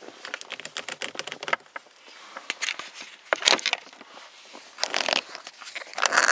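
Plastic bottom collar of a Mercedes shift knob being twisted by hand: a run of small plastic clicks and creaks, with a few louder scrapes about halfway through and near the end.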